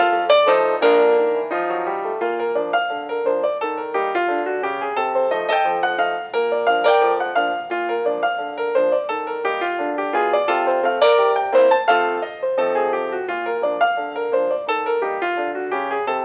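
Background piano music, a flowing piece of many quick notes.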